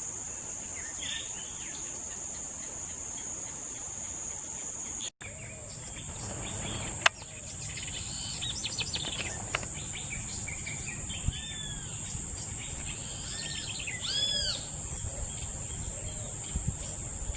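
A steady, high-pitched insect chorus, cricket-like, over a wetland, joined in the second half by birds calling with many short, arched chirps. The sound drops out for an instant about five seconds in, and there is a single sharp click about seven seconds in.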